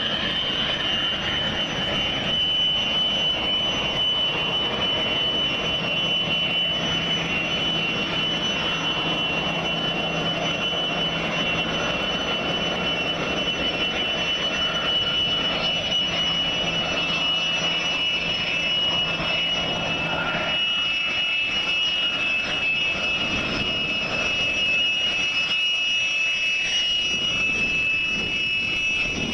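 Fouga Magister jet trainer's twin Turbomeca Marboré turbojets running at taxi power: a steady high-pitched whine over a constant rushing noise.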